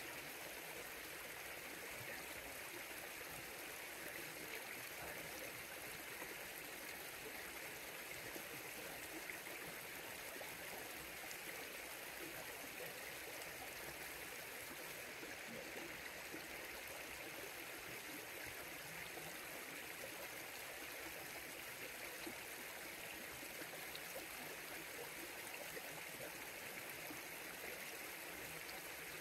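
River water flowing in a steady, even rush, without a break or change.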